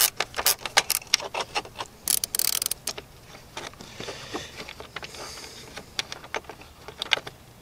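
Hand ratchet with a T20 Torx bit clicking as a long screw is backed out of the plastic fan shroud. The clicks come quick and irregular for the first three seconds, then fewer and fainter.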